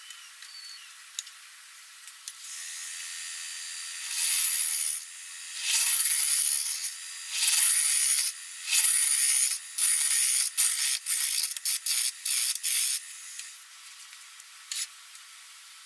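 Gouge cutting the face of a spinning wood blank on a wood lathe: loud scraping cuts, several long ones and then a quick run of short ones, with the lathe running steadily between them.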